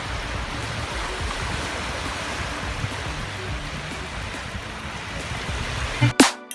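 A steady rushing noise with no distinct events; music cuts in abruptly near the end.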